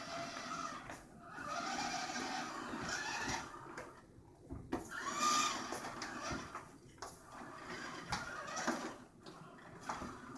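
TurtleBot's drive motors whining in spurts, the pitch rising and falling as the robot starts, stops and turns to follow the ball, with a few light knocks in between.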